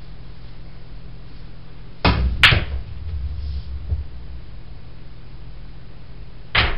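A pool cue strikes the cue ball about two seconds in, and a moment later the cue ball cracks sharply into the object ball. The balls roll across the cloth for about a second and a half with a light knock off a cushion, and another ball knock comes near the end.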